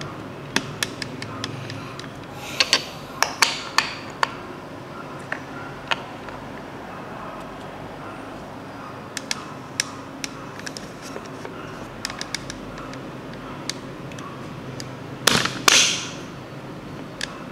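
Hard plastic pieces of a Play-Doh ice cream playset clicking and knocking as they are handled and set down: scattered light clicks, a cluster of louder knocks a few seconds in, and the loudest clatter near the end, over a steady hiss.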